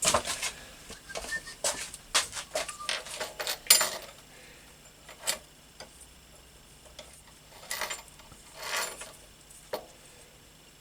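Small hard objects being handled on a workbench: a quick run of clicks, clinks and knocks over the first four seconds, then a few scattered clicks and short rustles.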